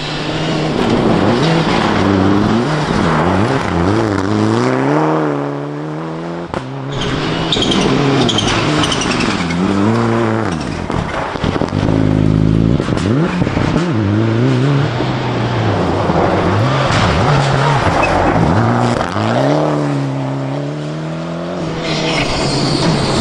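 Rally cars on a gravel stage passing one after another, engines revving hard and falling back again and again through gear changes and lifts, with a hiss of gravel and tyres under them.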